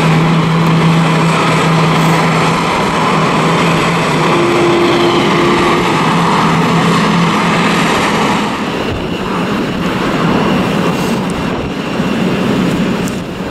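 Jet airliner noise on the apron, a loud steady rushing with a low steady hum through the first half; the sound shifts and drops a little about nine seconds in.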